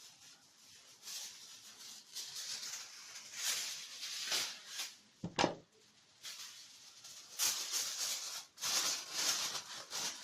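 Aluminium foil crinkling and rustling in irregular bursts as it is spread and pressed over a baking tray to seal it for steaming, with a sharp knock a little over five seconds in.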